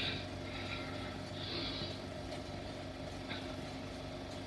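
Steady hum and hiss of an old 16mm optical film soundtrack, with no distinct sound event.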